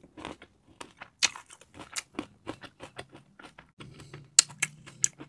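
Close-up crunching of a Dubai chocolate square with a pistachio and butter-toasted shredded-pastry filling: a run of sharp, crisp crackles, several a second, as it is chewed and pulled apart. A low steady hum joins in about four seconds in.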